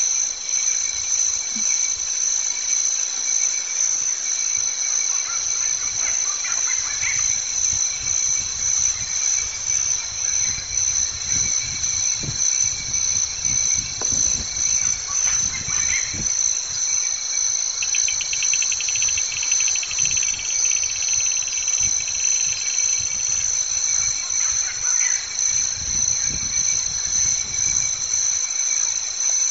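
A steady, shrill insect chorus in several pitches with a fine pulsing, joined by a rapid trill for a few seconds past the middle. Faint low rumbles come and go beneath it.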